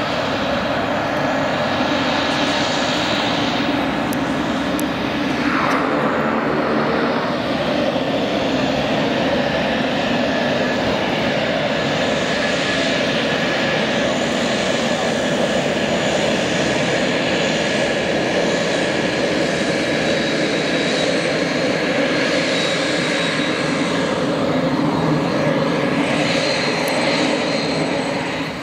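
Pilatus PC-12/45's single Pratt & Whitney PT6A turboprop running at taxi power: a steady propeller drone with a high, even turbine whine.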